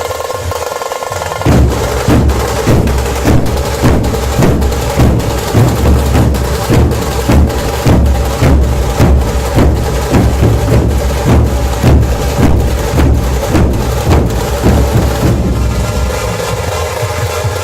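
Puneri dhol-tasha ensemble playing: heavy dhol beats about twice a second under rapid tasha strokes. The drumming comes in sharply about a second and a half in and breaks off a couple of seconds before the end, with a softer, steadier sound on either side.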